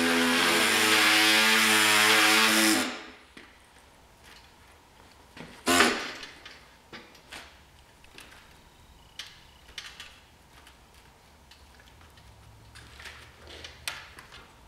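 Pneumatic air saw running, a steady pitched buzz with a strong hiss, as it cuts through plastic grille slats, stopping abruptly about three seconds in. After that come scattered clicks and clatter of the plastic grille pieces being handled, with one louder knock about six seconds in.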